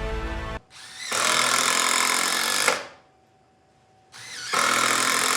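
Cordless driver spinning screws into a wooden board in quick bursts: one burst ends about half a second in, a second runs from about one second to nearly three, and a third starts about a second before the end.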